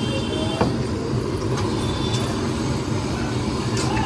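Steady rumble of street noise, with one sharp click a little over half a second in and a few fainter ticks later.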